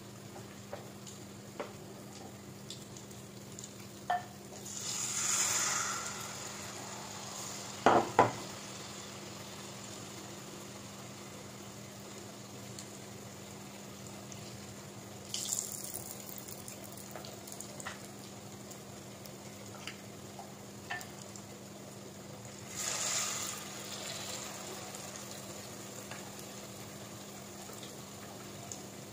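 Eggs deep-frying in a pot of hot oil: a steady sizzle that swells into louder hissing three times as eggs go into the oil. Two sharp knocks about eight seconds in.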